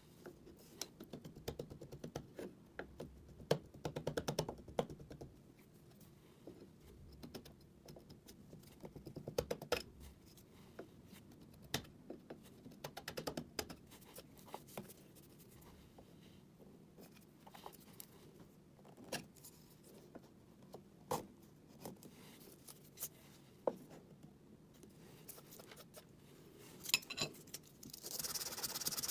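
Irregular small scrapes, clicks and ticks of a hand tool working cured body filler on a wooden door casing. Near the end a steady sanding hiss begins.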